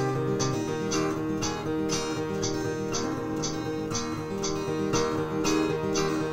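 Acoustic guitar played solo: sustained chords and bass notes with a steady pulse of about two picked or strummed strokes a second.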